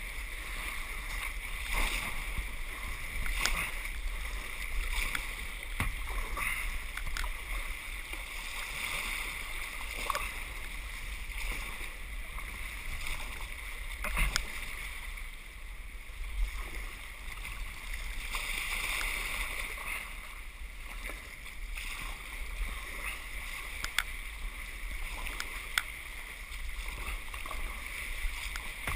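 Sea water sloshing and splashing around a paddled kayak, with a steady wash and irregular sharp splashes from the paddle strokes every second or two.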